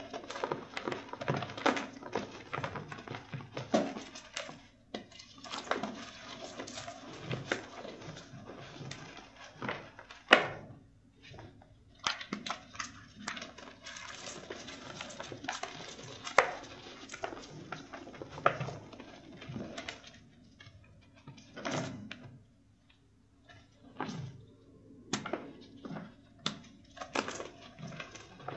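Crunchy reformed chalk mixed with charcoal being broken and crushed by hand: dry snapping, crackling and gritty crumbling in quick irregular bursts, with one sharp crack about a third of the way through and a quieter lull near the three-quarter mark.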